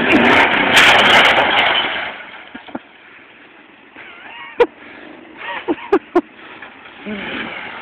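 Pickup truck engine revving hard under load as it pulls on a palmetto clump, loud for about two seconds and then dying away. A few sharp knocks follow later.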